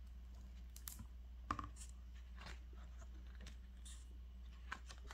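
Hardcover picture book being opened and its paper pages turned by hand: faint, scattered clicks and rustles over a low steady hum.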